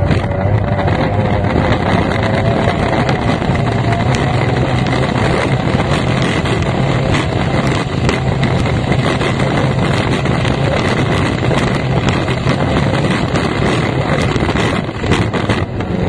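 F1 racing powerboat's V6 two-stroke outboard running hard, with a steady engine note under heavy wind buffeting on the microphone and hull-and-spray noise. The level dips briefly near the end.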